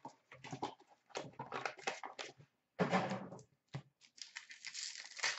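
Hands handling hockey card packs on a glass counter: scattered taps and crinkles, then a longer rustle about four seconds in as a pack is torn open.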